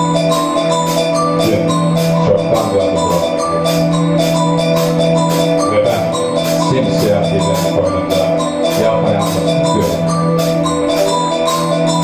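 Student rock band playing live: electric guitars and bass with held notes and a stepping melody over a drum kit keeping a steady beat.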